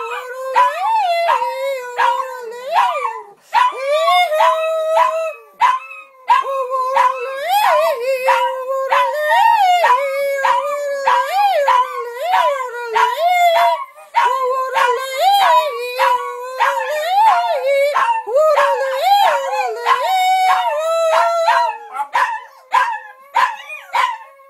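Several small dogs howling along with a woman's yodel, the voices leaping up and down in pitch in a quick repeating figure. Near the end the long howled tones break into short yips.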